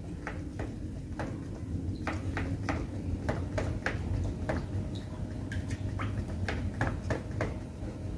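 Metal spoon clinking and ticking against a clear plastic cup while stirring two-part clear coat with its hardener and thinner: irregular light clicks, about two or three a second, over a steady low background rumble.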